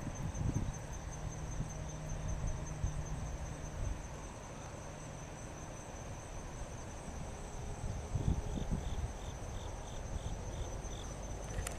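Steady high-pitched trill of insects singing in the bankside grass, over a low rumble of wind. A short run of faint quick chirps comes in about eight seconds in.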